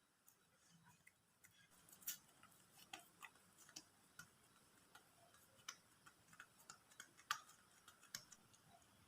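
Faint, irregular light clicks and ticks, about one or two a second, with a sharper one about seven seconds in: small kitchen-work sounds.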